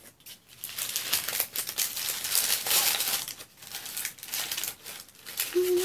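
Paper wrapping crinkling and rustling in irregular bursts as hands unwrap a small packaged item.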